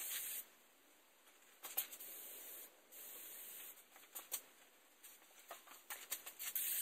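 Aerosol can of Fluid Film rust inhibitor spraying in several short hissing bursts, each under a second long, with a few light clicks in between.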